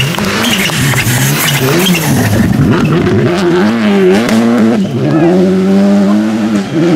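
Rally car engine revving hard on a gravel stage, its pitch rising and falling through throttle lifts and gear changes. About five seconds in the engine settles into a steady high note.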